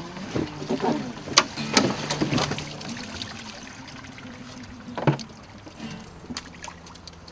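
A wooden shrimp box being hauled aboard an aluminium boat: knocks and clatter of the box against the metal hull, most of them in the first two and a half seconds, with one more knock about five seconds in.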